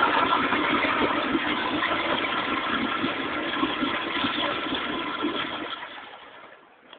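Kohler Kingston commercial toilet flushing through its flushometer valve: a loud, steady rush of water that fades out near the end.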